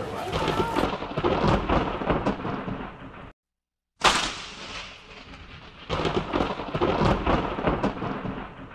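Handheld power tool cutting into a block of ice, a dense crackling, rumbling noise. It breaks off abruptly into a moment of silence a little over three seconds in, then starts again.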